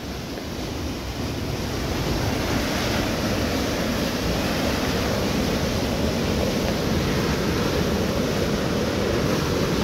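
A flooded mountain stream in spate: a muddy torrent rushing and churning over boulders in a steady, loud roar that swells over the first couple of seconds as the stream comes closer, then holds.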